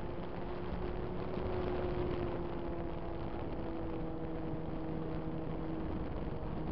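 RC model plane's motor and propeller heard from the onboard camera in flight: a steady pitched drone with a slight waver, over a constant rush of wind noise.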